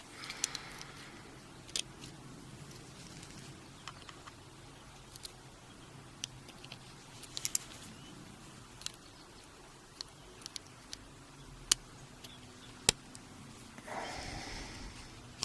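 Sparse, small sharp metal clicks and scrapes as a tool works the circlip off a half Euro lock cylinder, with a soft rubbing sound near the end.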